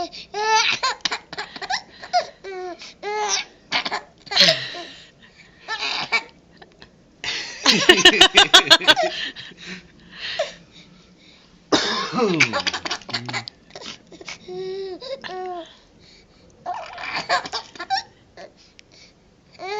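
A baby laughing in repeated bursts of giggles and belly laughs, set off by a man coughing several times in short harsh bursts between them. The man's coughing comes from allergies.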